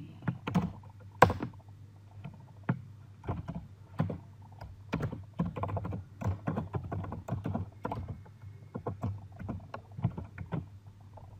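Typing on a computer keyboard: irregular keystrokes with short pauses between runs, the sharpest about a second in, over a low steady hum.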